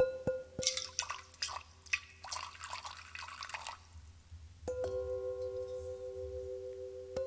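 Sound-art piece: a flurry of dripping, watery sounds for a few seconds, then a struck bell-like instrument that rings on with a steady, pure tone and is struck again near the end.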